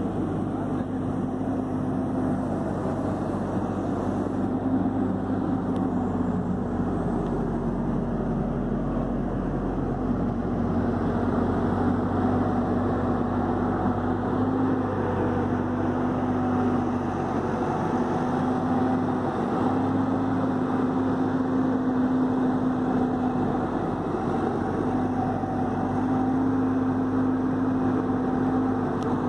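Caterpillar 314D excavator's diesel engine running steadily, a constant drone with a low hum that wavers slightly in pitch.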